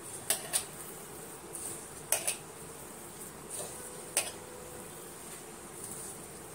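Hands kneading a sabudana vada mixture of soaked sago, mashed potato and crushed peanuts in a stainless steel bowl. The loudest sounds are a few sharp clinks against the steel: a pair at the start, another pair about two seconds in, and a single one about four seconds in.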